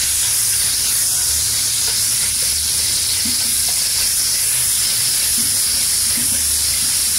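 Liquid sizzling steadily in an aluminium pot while a metal ladle stirs it.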